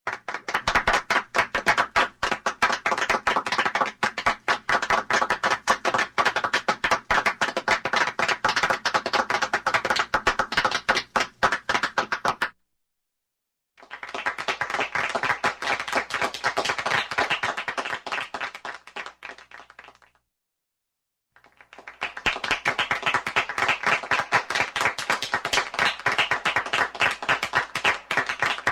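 A small group of people applauding, in three separate takes. The first breaks off suddenly about twelve seconds in, followed by about a second of silence. The second fades out around twenty seconds in, and after another short silence the third begins and is still going at the end.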